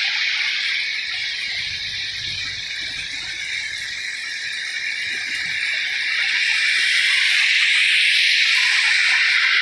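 Heavy monsoon rain falling in a steady hiss, easing slightly for a few seconds and then growing louder again about two-thirds of the way through.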